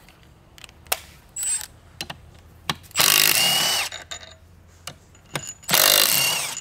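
A cordless ratchet runs twice, each time for about a second, spinning out the bolts of an M205 differential's bearing caps. Each run carries a steady motor whine that drops as it stops. Light clicks and clinks of tool and parts come in between.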